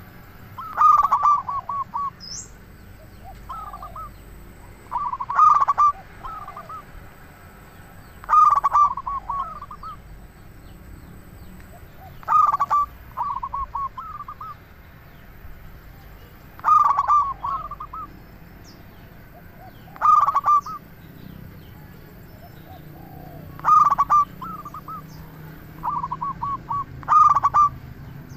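Male zebra dove (perkutut) singing its cooing phrase over and over, about every three to four seconds: each phrase a loud opening note followed by a quick run of shorter coos.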